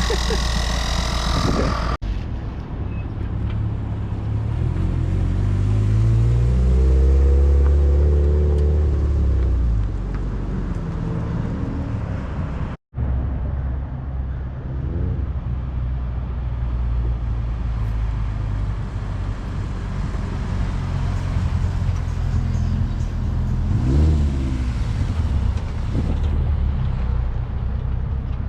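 Car engines running in a low, steady rumble. Twice the pitch rises as an engine revs or pulls away: a few seconds in, and again near the end. The sound drops out for a moment about halfway through.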